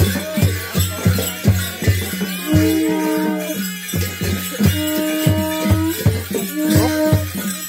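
Folk music for a Nepali Dhami dance: a drum beaten in a steady rhythm of several strokes a second, with jingling and long held notes over it.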